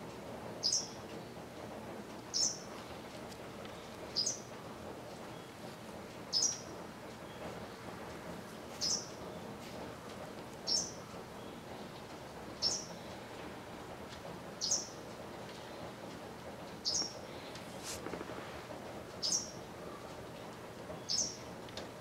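Japanese wagtail calling: a short, sharp, high call repeated about every two seconds, eleven times in all.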